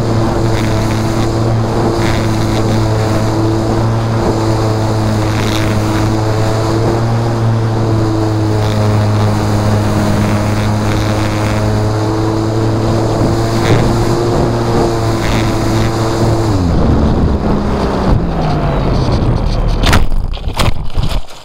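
Electric motor and propeller of an Art Tech Spitfire V2 RC plane, heard up close through the camera mounted on the plane. The motor runs at a steady pitch with a buzzing hum, then winds down in pitch about three-quarters of the way through. A few sharp knocks follow near the end.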